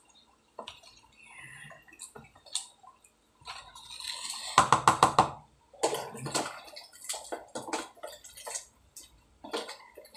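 Household containers and utensils being handled: scattered clinks and knocks, with a quick rattle about four and a half seconds in.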